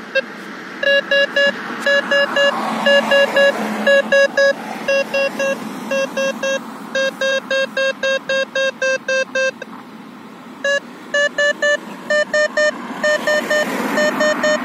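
Radar proximity-alert beeps from the EUC World app paired with a Garmin bike radar: short beeps in groups of two or three that quicken into a rapid run about seven seconds in, stop for about a second, then resume. The rate and pitch of the beeps signal how near an approaching car is. Cars drive past on the road underneath.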